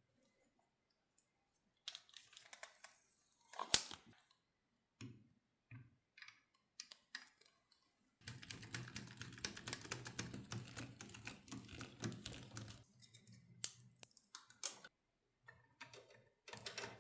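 Computer parts being handled by hand during assembly: scattered clicks, taps and light rustling, with one sharp click a few seconds in and a dense run of rapid clicking about halfway through.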